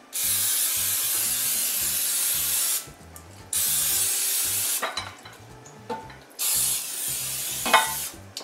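Aerosol cooking spray hissing from the can as a baking dish is greased, in three bursts: a long spray of nearly three seconds, a shorter one, then a third near the end. A few light knocks sound between the sprays.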